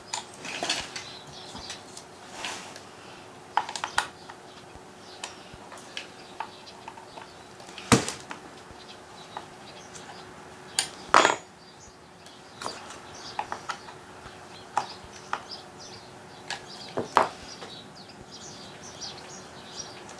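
Light metallic clinks and knocks from handling a Husqvarna 445 chainsaw's bar and chain while the chain is tensioned, scattered and irregular, with two louder knocks about eight seconds in and three seconds after that. A faint steady hum runs underneath.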